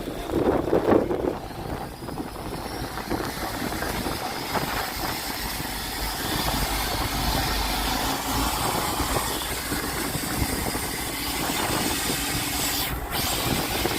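Fishing boat's engine running steadily, under a constant wash of noise.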